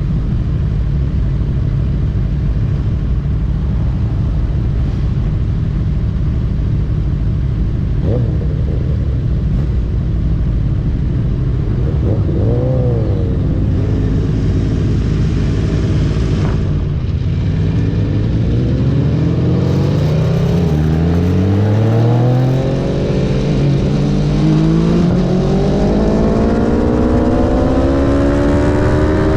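Aprilia Tuono V4 1100 RR's V4 engine through an Akrapovic slip-on exhaust, under heavy wind rush at speed. At first it holds a steady cruise; from about midway it accelerates hard, its pitch climbing through the gears with a short dip at each upshift.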